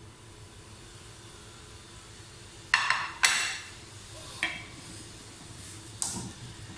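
Cookware clatter as chopped onions in oil are handled and stirred in a non-stick pot with a spatula: two sharp knocks about half a second apart near the middle, then a couple of lighter knocks.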